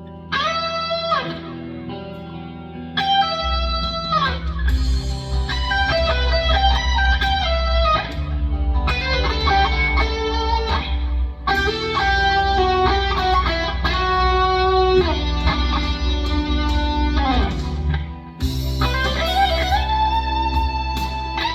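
Electric guitar through a Fractal FM9 amp modeler, playing an improvised lead in E minor with bent notes that slide up and down in pitch. A steady low bass backing comes in about three seconds in.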